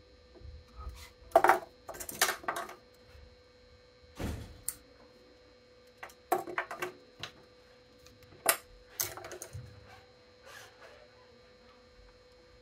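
Sharp clicks and light clinks in irregular clusters from hand-stringing a badminton racket on a stringing machine: string, clamps and tools being handled. The loudest clicks come about a second and a half in and again near the middle, over a faint steady hum.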